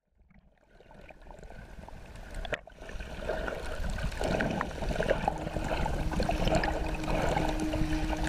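Water bubbling and gurgling, as heard under water, fading in from silence and growing steadily louder. A low steady note joins about five seconds in.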